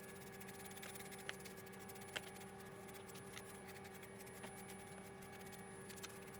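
Faint steady hum with a couple of faint clicks.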